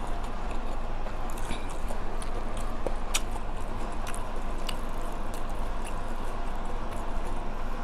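Close-up eating sounds: chewing, with a few small clicks and taps from handling the food, over a steady low background hum.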